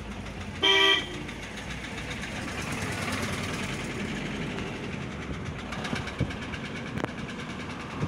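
A vehicle horn toots once, briefly, a little over half a second in, over the steady noise of a car driving, heard from inside the cabin.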